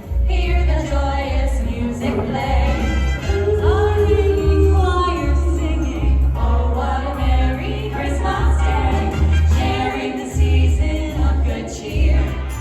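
Background music: a choir-style song with voices singing over a steady low beat.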